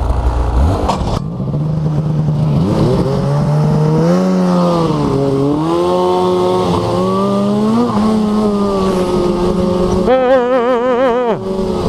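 Snowmobile engine running under way, its pitch rising and falling as the throttle is worked. Near the end the pitch wavers rapidly up and down.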